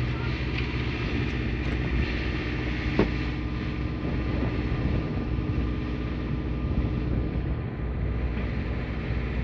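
A fishing boat's machinery running steadily, a low drone with a faint steady tone over it. A single sharp click comes about three seconds in.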